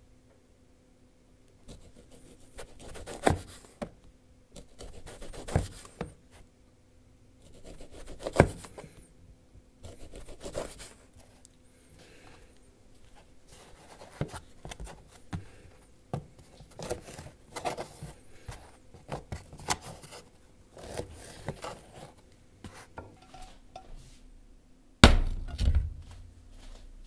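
Kitchen knife slicing through a log of cured sausage on a flexible plastic cutting board, each cut ending in a knock of the blade on the board, one every two to three seconds. Near the end, one louder, deeper thump.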